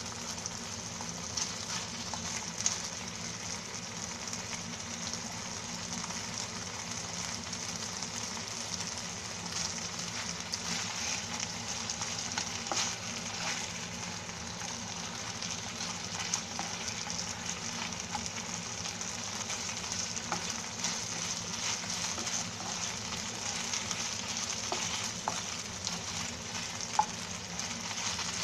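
Marinated beef slices sizzling in a frying pan while a spatula stirs and scrapes them. The steady frying hiss carries scattered clicks of the spatula against the pan, with a sharper knock about three seconds in and another near the end.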